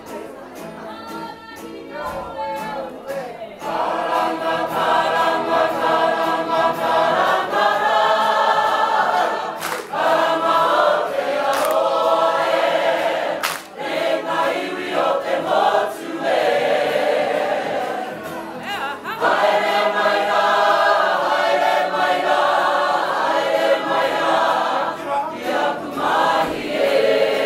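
A waiata (Māori song) sung by a group of voices together in harmony. It starts softly and swells to full level about four seconds in.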